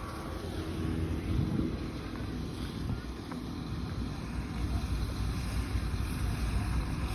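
Motor vehicle engine running with a low rumble, its pitch rising briefly about a second and a half in, with wind on the microphone.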